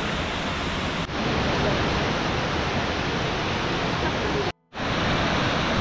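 Wei Sawdong Falls: a steady, dense rush of falling water. It is broken by a short dip about a second in and a brief dropout near the end, where the footage is cut.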